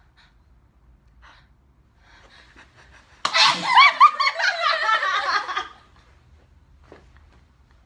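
Several young women laughing and squealing together for about two and a half seconds, starting suddenly about three seconds in.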